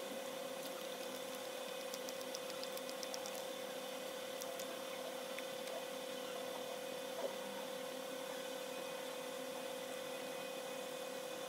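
Steady hum with one constant mid-pitched tone and a few fainter higher ones, like a fan or appliance running in a small room; a short run of faint quick ticks about two to three seconds in.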